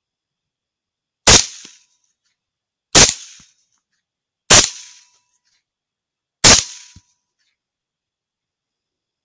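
Four 6.5 Creedmoor rifle shots, the first about a second in and the rest one and a half to two seconds apart, each a sharp crack that dies away within half a second.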